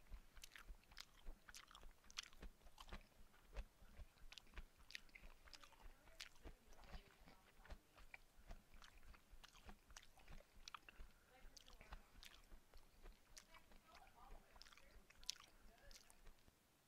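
A person chewing food with faint, irregular wet mouth clicks and smacks, several a second, close to a headset microphone.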